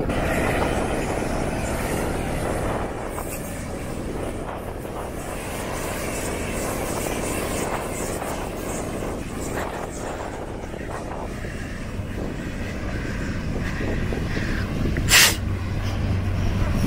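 Four-wheel-drive ute's engine working hard as it climbs a soft sand dune, heard from some distance behind, with one short sharp knock near the end.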